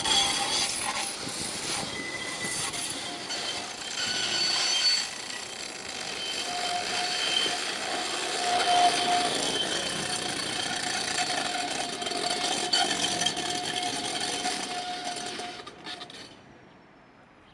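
Electric tram running on its rails: a steady rolling noise with high whining tones through most of it, dropping away suddenly near the end.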